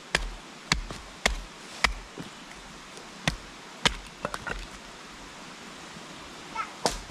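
A wooden baton striking the spine of a knife driven into a log, splitting it for kindling: sharp wooden knocks, four about every half second, two more a little after three seconds, a few lighter ones around four and a half seconds, and a last one near the end.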